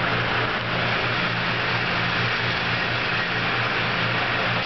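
Indoor shooting range ventilation running: a steady rushing noise with a low hum.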